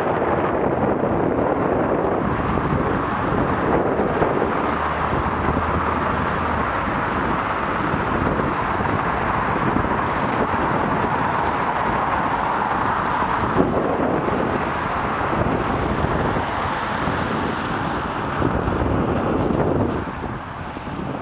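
Steady wind rush on the microphone of a camera on a moving bicycle, mixed with the noise of car traffic on a wet road. The rush eases a little near the end.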